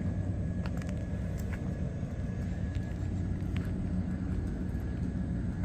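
Steady low engine rumble, with a few faint clicks over it.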